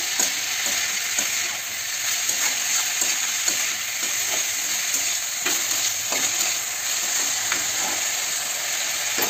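Chopped onions and garlic sizzling steadily in hot oil in a kadai, stirred with a metal spatula that knocks and scrapes against the pan now and then.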